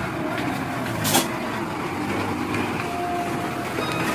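Mitsubishi Fuso dump truck's diesel engine running steadily, with one sharp knock about a second in.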